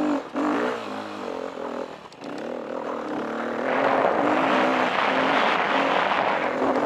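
Single-cylinder four-stroke KTM 350 EXC dirt bike engine pulling hard up a steep hill, the throttle easing off twice in the first couple of seconds, then held open. From about halfway a loud rushing noise joins over the engine.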